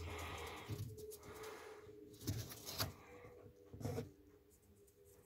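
Papery rustling and scratching with a few sharp knocks and dull thumps, the loudest a little past two seconds and about four seconds in.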